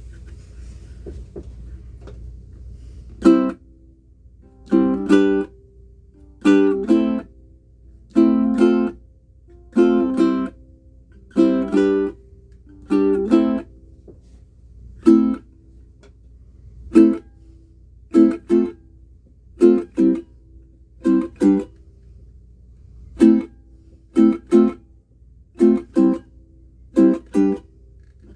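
Curly spalted mango Pono pineapple ukulele with a wound low-G string, strummed as separate chords with pauses between them, starting about three seconds in. The early strums ring for about a second each; later they come shorter and quicker, often in pairs.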